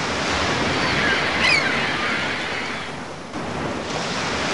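Rushing surf-like noise that swells, dips about three seconds in and builds again, with a few short high chirps about a second and a half in.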